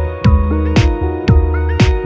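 Background music with a steady beat, about two drum hits a second, over held pitched tones.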